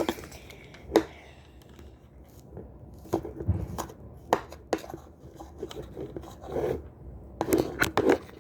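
Fidget toys being handled and set down, giving scattered, irregular clicks and knocks, with several close together near the end.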